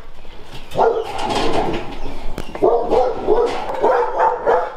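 Shelter dogs in their kennel runs barking, the barks overlapping almost without a break from about a second in.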